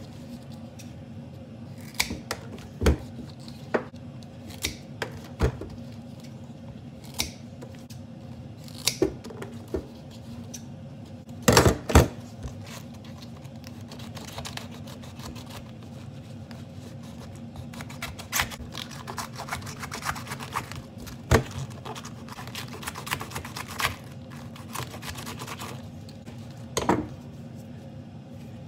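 Kitchen shears snipping the tips off artichoke leaves, with sharp snips at irregular intervals, and a knife cutting through the fibrous artichoke in a denser run of crackling cuts in the second half. A steady low hum runs underneath.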